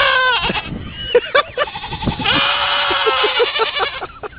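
A sheep bleating: a short bleat at the start, a few brief calls, then one long wavering bleat from about two seconds in.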